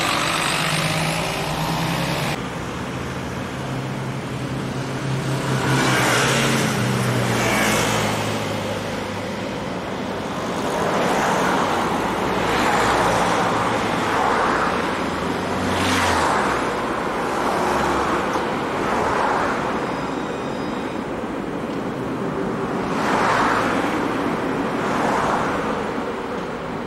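Road traffic: cars passing one after another, each one swelling and fading, over a low engine hum that runs through the first half.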